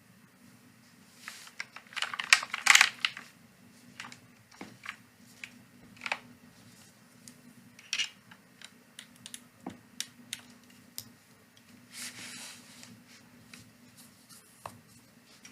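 Bina 103 mechanical keyboard with Cherry Hyperglide MX Black linear switches, a half aluminium plate, no foam and Olivetti-style keycaps being typed on. Irregular keystrokes, with a fast, loud flurry about two seconds in and another burst near twelve seconds, scattered single clicks between.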